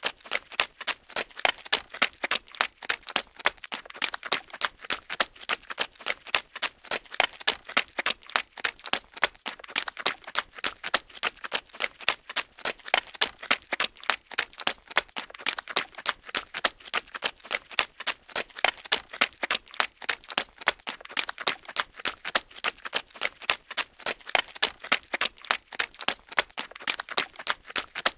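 Footsteps running through mud: a fast, even run of wet steps that keeps on without a pause.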